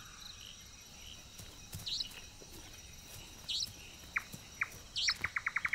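Night wildlife ambience: a faint hiss with short high chirps about every second and a half. Near the end comes a fast run of about a dozen clicking calls in a second.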